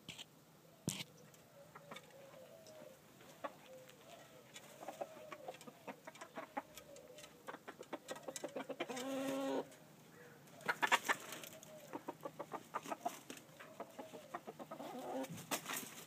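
Game chickens clucking, with many sharp taps and scratches. A pitched call lasting about a second comes near the middle, followed by a loud run of taps.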